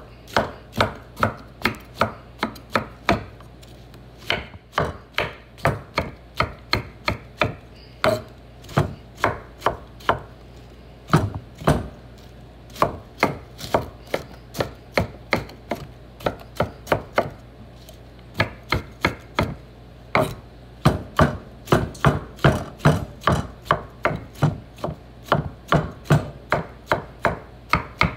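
Kitchen knife slicing mushrooms on a wooden cutting board: quick, evenly spaced knocks of the blade hitting the board, about three a second, in runs with short pauses between them.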